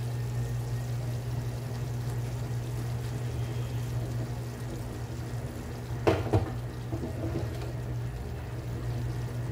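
Fried chicken pieces scraped with a metal spatula out of a frying pan and dropped into a pan of thick gravy, with a sharp clatter and wet plop about six seconds in. A steady low hum runs underneath.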